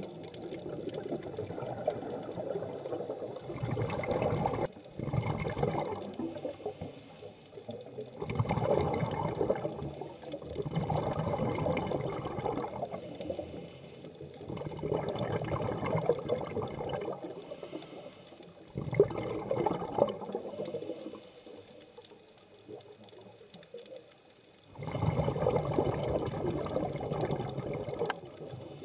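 Scuba diver's exhaled air bubbling out of a regulator underwater, in bursts of a second or two to three seconds, one every few seconds, with quieter gaps between breaths.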